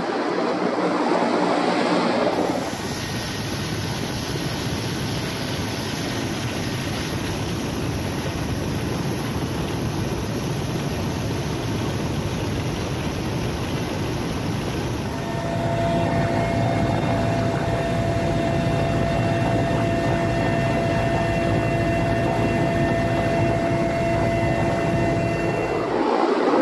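Mil Mi-8 helicopter's twin turboshaft engines and main rotor running, heard from on board as a loud, steady rushing noise. About halfway through, a steady high turbine whine comes through above it.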